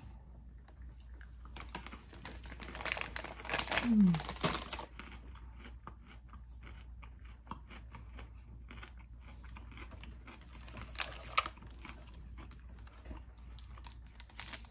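A person biting into and chewing a crunchy sprinkle-coated pretzel, the loudest crunching in the first few seconds with a short falling "mmm" about four seconds in, then quieter chewing clicks.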